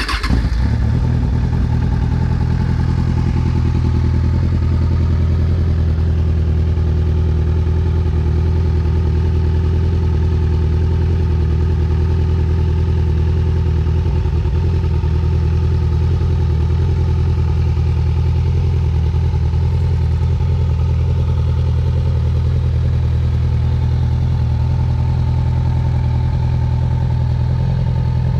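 Kawasaki Z1000 inline-four engine in a Yamaha Raptor 700 quad firing up at the very start and then idling steadily.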